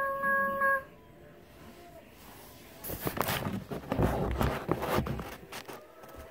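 A steady horn tone cuts off under a second in. After a short quiet, footsteps and handling rustle follow as the phone is carried across a room with a wooden floor.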